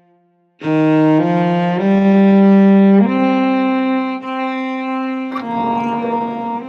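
Film score of bowed strings, violin and cello. After a brief silence the strings come in loudly about half a second in and hold a slow line of notes that steps upward. A rougher, noisier layer joins about five seconds in.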